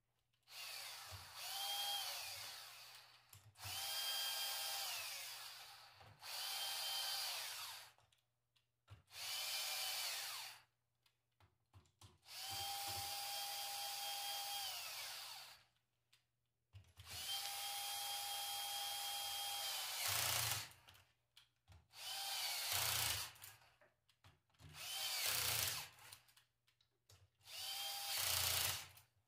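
Power drill-driver running in about ten short runs. Each run spins up, holds a steady whine and winds down. It is driving fasteners as the alternator is put back together, before a final hand tightening.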